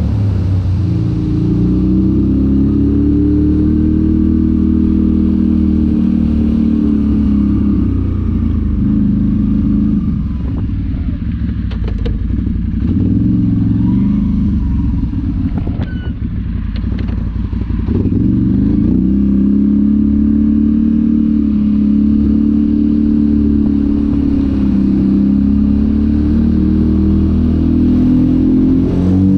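ATV engine running under load and revving, its pitch rising and falling repeatedly. For several seconds in the middle it drops lower and rougher, with scattered clattering knocks, then comes back up to steady revving.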